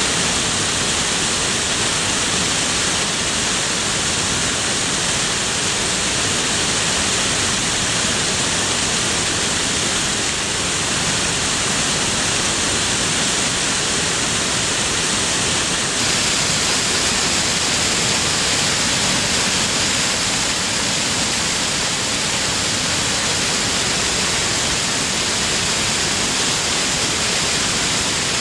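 Waterfall: a steady, loud rush of falling water, with a slight shift in tone about halfway through.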